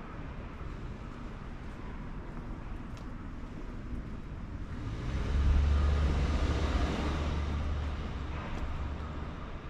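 A motor vehicle passes close by: a low engine and tyre rumble swells quickly about halfway through, then fades away over a few seconds, over faint street background.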